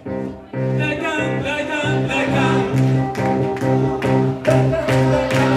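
Live performance of an Italian cartoon theme song: a man singing into a microphone over electronic keyboards with a steady beat.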